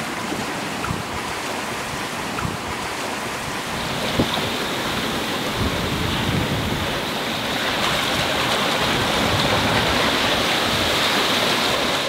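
Wind and rushing seawater around a sailboat under way in rough seas, with wind buffeting the microphone. A steady noisy rush that grows a little louder in the second half.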